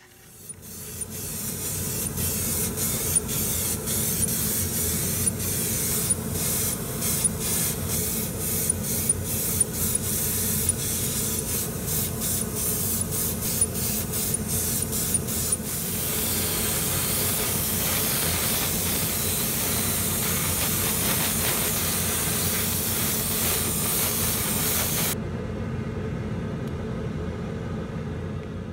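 Airbrush spraying paint with a loud, steady hiss over a low hum. The hiss comes in many short trigger bursts at first, runs unbroken for several seconds, then cuts off a few seconds before the end, leaving only the hum.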